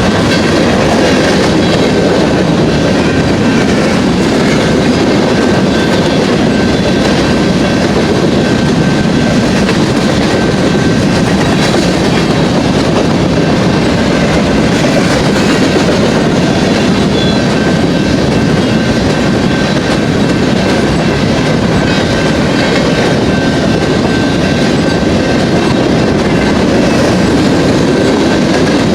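Empty grain train of covered hopper cars rolling past at speed: a steady, loud rumble of steel wheels on rail, with clickety-clack over the rail joints.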